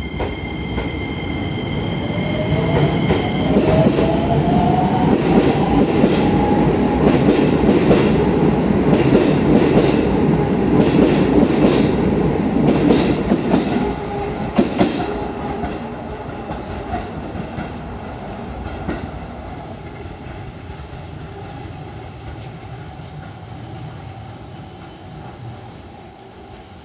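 Shin-Keisei N800-series electric train pulling away and passing close by. Its motor whine rises in pitch as it accelerates over the first several seconds, and the wheels clack over the rail joints as the cars go by. The sound is loudest as the cars pass, then fades after the last car goes by about 14 seconds in.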